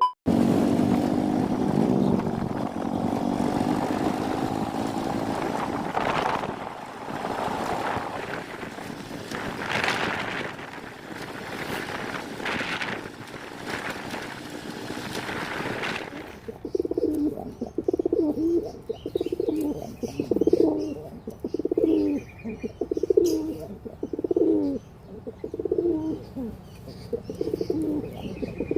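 For the first sixteen seconds or so a steady rushing noise, then domestic pigeons cooing, one short low coo phrase about every second, with faint higher chirps over them.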